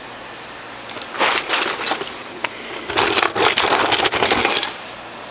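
Two bursts of dense crunching and crackling, about a second in and again near the middle, the second longer and louder.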